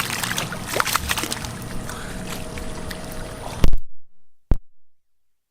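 Muddy water splashing and sloshing, with scattered clicks, as fish are groped for in a flooded rice field. Near the end a loud knock, then the sound cuts out abruptly, followed by a single sharp click.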